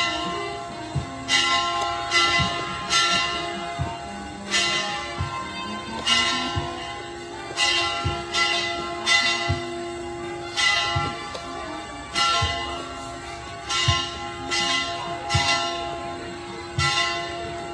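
Church bells pealing in a festive repique: strokes about once a second in an uneven rhythm, several bells of different pitch ringing on and overlapping.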